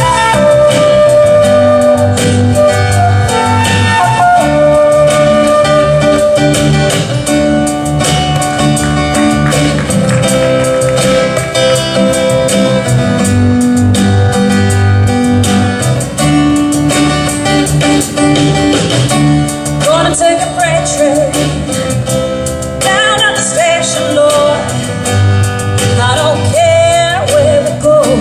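Live band: a concert flute plays a melody over guitar accompaniment, then about twenty seconds in a woman's singing voice comes in with vibrato.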